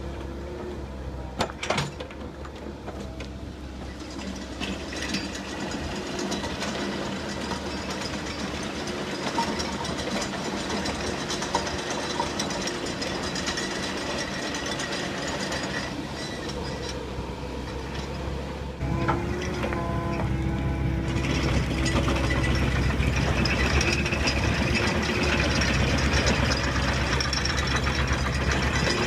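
Compact excavator's diesel engine running under hydraulic load, with the fast, steady clatter of a screening bucket shaking soil through its grid. The machine grows louder about two-thirds of the way through and stays so.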